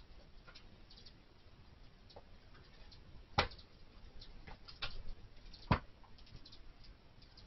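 Scattered faint sharp ticks and clicks over a low hiss, with two louder clicks about three and a half and nearly six seconds in.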